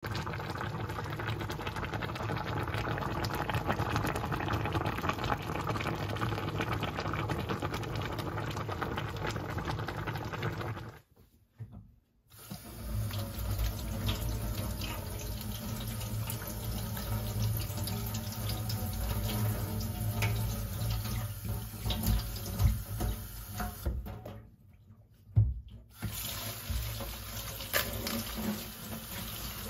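Kitchen tap running into a stainless steel sink, the water splashing as hands rinse a green papaya and then bok choy under it. The sound drops out briefly twice, about eleven and about twenty-four seconds in.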